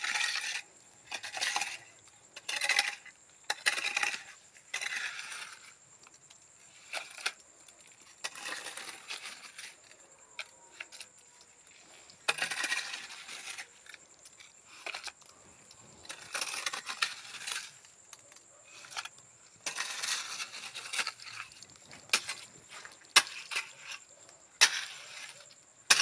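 A hand tool scraping and working wet cement mortar on a floor: repeated short gritty scrapes at irregular intervals, with a couple of sharp clicks near the end.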